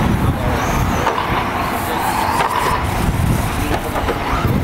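Electric RC truggies racing on a dirt track, their motors whining up and down in pitch as they accelerate and slow through the corners, over a steady low rumble.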